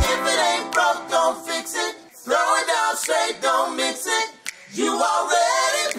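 Voices singing a cappella, with no instruments, in short phrases with brief pauses between them.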